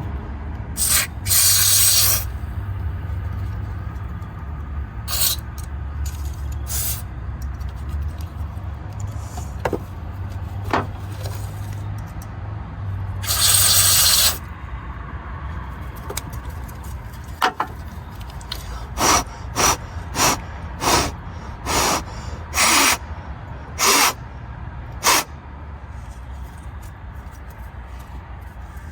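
Aerosol contact cleaner sprayed into a grimy electrical connector to clean it before plugging it in. Two hisses of about a second each, a few brief puffs, then a quick run of about eight short puffs in the second half.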